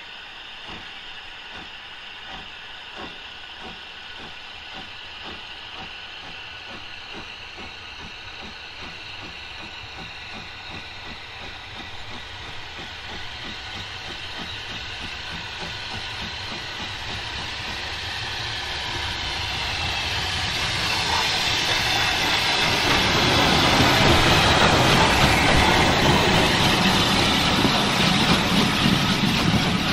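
Caledonian Railway 0-4-4T steam tank locomotive No. 419 approaching and working steadily, its exhaust beats growing louder. It passes at its loudest about 24 seconds in, with a rush of steam hiss and the clatter of wheels on rail.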